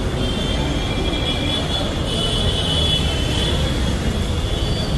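Steady din of a busy city street, mostly traffic noise, with no single event standing out.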